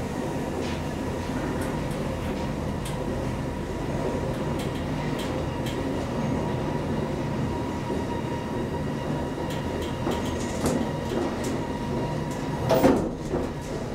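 1972 KONE ASEA Graham inclined elevator travelling along its inclined track: a steady running hum with a high tone held through it, light rattles and clicks, and a louder clunk near the end.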